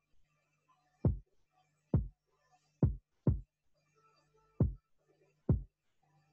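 Electronic kick drum from a hip-hop beat playing on its own in Logic Pro X: six deep kicks in a syncopated pattern, each dropping quickly in pitch.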